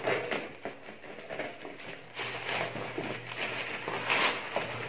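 Scissors cutting through plastic bubble wrap while the wrap is pulled and handled, giving irregular crinkling and rustling, loudest about two seconds in and again near the end.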